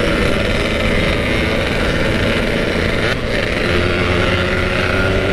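Motorcycle engine running steadily at road speed, heard from the rider's own bike, with wind noise over the microphone; the engine sound dips briefly about three seconds in and then carries on at a slightly lower pitch.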